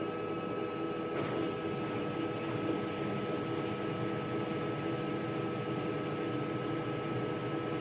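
Haier washing machine spinning its drum on the spin cycle: a steady, even hum with a constant thin whine over it.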